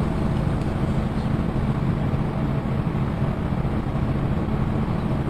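A steady low hum under an even background hiss, with no change through the stretch.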